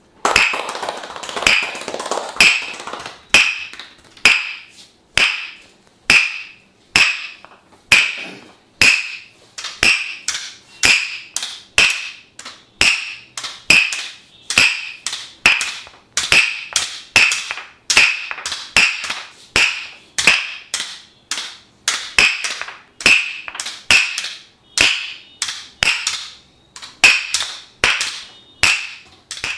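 Tok Sen massage: a wooden mallet striking a wooden wedge held against the body, a steady run of knocks about two a second, each with a short ring.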